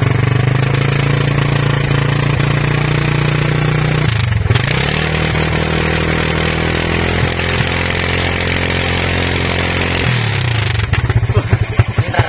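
Motorcycle engine revved hard through a homemade exhaust made from an empty Khong Guan biscuit tin, held at high revs with a brief dip about four seconds in. It drops back to a pulsing idle near the end.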